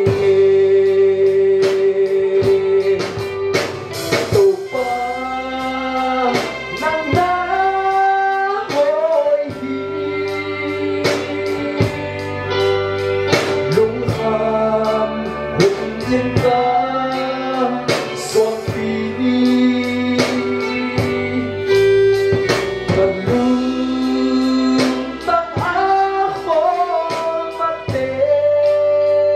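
A male vocalist sings a worship song into a microphone, backed by a live band of electric guitar, bass guitar and keyboard.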